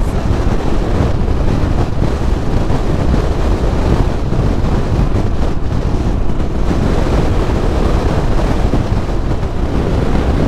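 Steady wind rush over the microphone of a Royal Enfield Himalayan motorcycle at riding speed, with a low rumble from the bike underneath.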